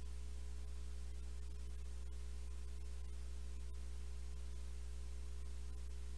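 Steady electrical hum with a low buzz and evenly spaced overtones, under a faint hiss, with a few faint scattered clicks.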